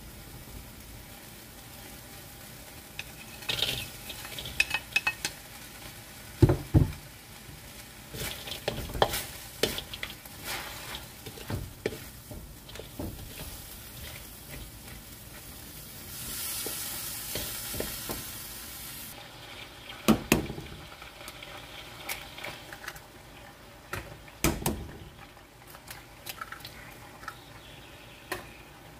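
Food sizzling in a steel wok while a wooden spatula stirs and scrapes noodles, bean sprouts and tofu, with frequent clicks and several loud knocks of the spatula against the wok. A louder hiss rises for about three seconds past the middle.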